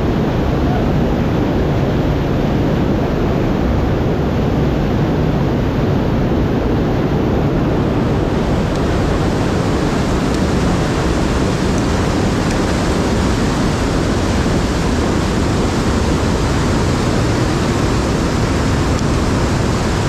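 White water of a mountain river rushing through a narrow rock gorge, a loud, steady rush of water.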